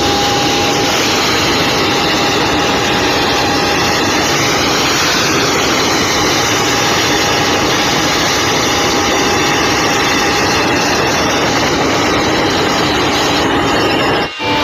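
A large engine running steadily, with a constant whine over a loud even roar. The sound breaks off briefly near the end.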